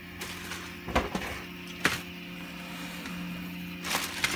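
Two sharp knocks as objects are handled on a workbench, then a clear plastic bag crinkling near the end as it is opened and rummaged through.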